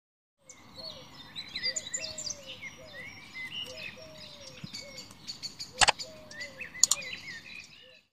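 Several birds chirping and whistling in quick, overlapping calls, with a lower short call repeating under them. Two sharp clicks, about a second apart, stand out as the loudest sounds about two-thirds of the way through.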